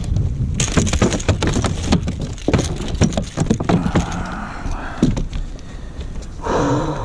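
Irregular knocks, clicks and rattles on a fishing kayak, many in quick succession, over steady wind and water noise.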